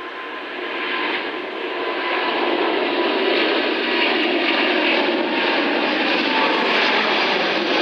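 Rolls-Royce Trent 7000 turbofans of an Airbus A330-900neo at climb power just after takeoff: a broad, steady jet noise that grows louder over the first two seconds or so as the airliner climbs past, then holds steady.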